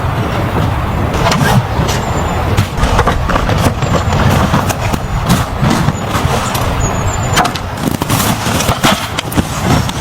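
A car driving, with a steady low rumble broken by irregular knocks and crunches.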